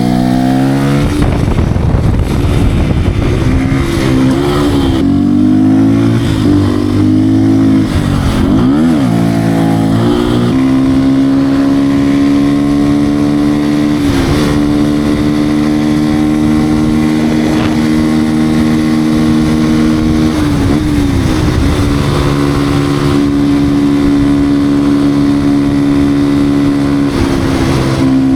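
Beta RR 125 R supermoto's single-cylinder 125 cc engine under way, revving up and falling back several times over the first ten seconds, then holding steady high revs with a few short dips in pitch.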